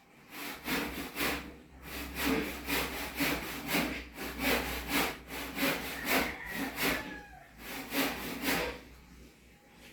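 Hand saw cutting through wood in steady back-and-forth strokes, about three a second, pausing briefly twice.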